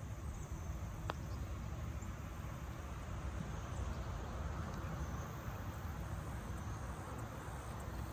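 A single short click about a second in: a putter striking a golf ball on the green. Behind it runs a steady background of insects chirring and a low outdoor rumble.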